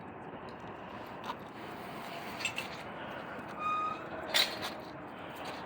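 Steady outdoor background noise with faint traffic. Near the end there is one brief, level high-pitched tone and then a sharp click.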